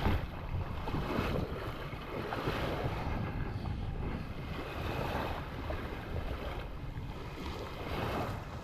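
Wind on the microphone over water washing at the shoreline: a steady rushing with no clear single event.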